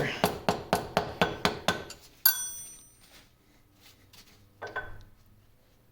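A small hammer tapping a soft metal punch against a lathe headstock's castle nut to work it loose: quick light taps, about four a second for two seconds. Then one sharper metallic clink that rings briefly, and a softer knock near the end.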